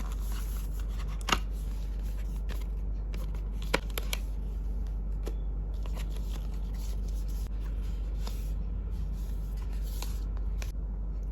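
Hands handling phone packaging and accessories close to the microphone: light rustling and scattered small clicks, with two sharper taps about a second in and just under four seconds in, over a steady low hum.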